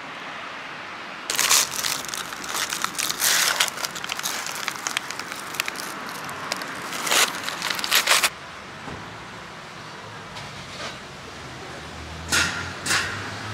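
Crackly crinkling of a food wrapper being handled for about seven seconds, followed near the end by two short sharp knocks.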